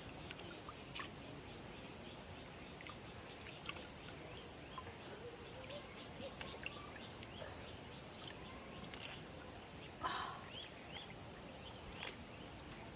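A weak trickle of water dripping into cupped hands, with faint sips as the water is drunk from them.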